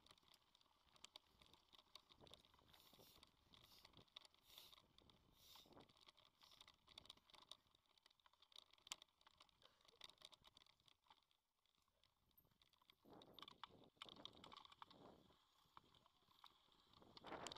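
Faint, irregular clicking and crunching of a mountain bike riding a dirt trail: tyres on loose dirt and gravel and small rattles from the bike. A soft rushing noise, like wind, rises about thirteen seconds in.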